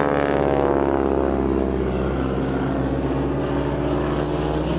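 Boeing Stearman biplane's radial engine and propeller droning overhead during an aerobatic display. The engine's pitch falls over the first second or so, then holds steady.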